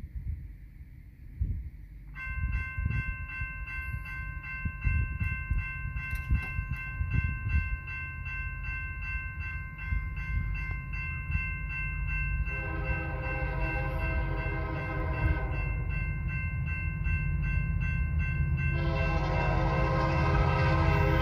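A railroad crossing bell starts ringing about two seconds in, a quick, steady, even ringing. Then the approaching Union Pacific freight locomotive sounds its horn: one long blast of about three seconds, and a second long blast starting near the end, the loudest sound here, all over a low rumble.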